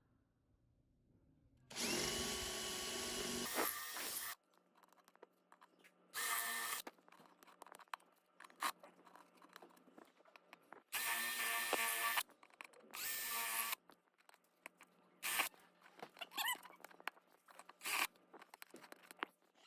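Small handheld electric power tool running in several separate bursts of a couple of seconds each, its motor whining steadily, with short clicks and knocks in the gaps between bursts.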